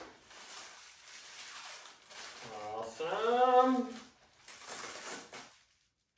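A rolled-up kite being handled and unrolled, its fabric rustling softly in two stretches. In between, about two and a half seconds in, there is a short wordless voiced sound like a hum that rises and falls in pitch.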